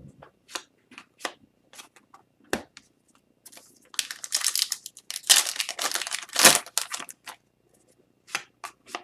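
Trading cards being handled in short clicks and flicks, then a foil hockey card pack wrapper torn and crinkled for about three seconds midway, followed by more card handling.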